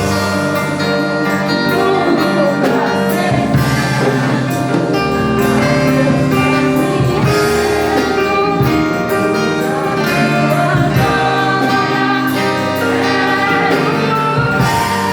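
Music with singing voices and guitar, in a gospel style.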